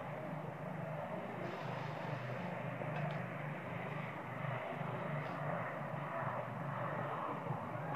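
A steady low engine drone with a hiss above it, and a few faint clicks around the middle.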